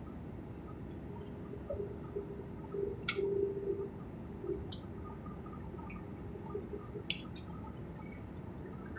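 Steady low rumble of an airliner's engines and airflow heard inside the cabin during the descent to land. A brief wavering hum comes about three seconds in, and a few faint sharp clicks come through it.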